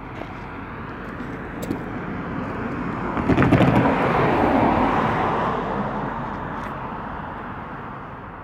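A car driving past on the road: tyre and engine noise swelling to a peak about three and a half seconds in, then fading away slowly.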